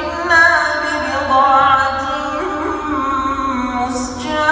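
A young man's voice reciting the Quran in a melodic, chanted style (tartil with tajwid), drawing out long held notes ornamented with wavering turns, with a brief breath-pause near the end.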